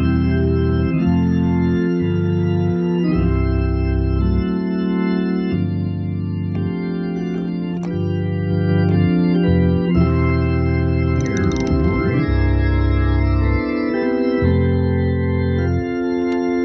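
Hammond organ playing a slow gospel piece: held chords on the upper notes over bass notes that change every second or so.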